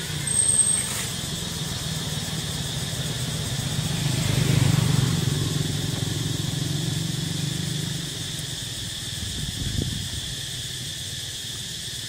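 A motor vehicle's engine hums, growing louder and then fading over several seconds around the middle, like a vehicle passing by. A steady high-pitched drone runs underneath.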